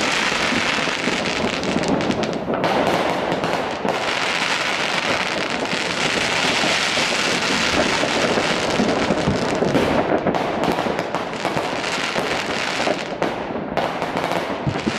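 Many fireworks and firecrackers going off at once: a dense, unbroken stream of overlapping bangs and crackling with no pauses.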